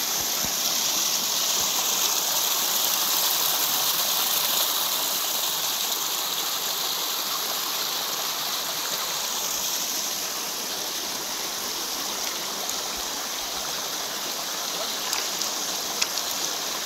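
Shallow mountain stream running over rocks and through small cascades: a steady rush of water. Near the end come a few sharp clicks, footsteps on the stones.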